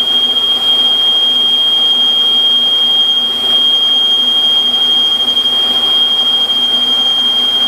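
Metal lathe running under a boring cut, a boring bar cutting inside the spinning workpiece and throwing chips. A steady high-pitched whine sits over the machine's lower hum throughout.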